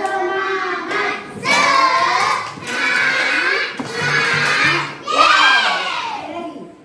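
A class of young schoolchildren chanting a cheer loudly in unison with their teacher, in short shouted phrases about a second each, clapping along.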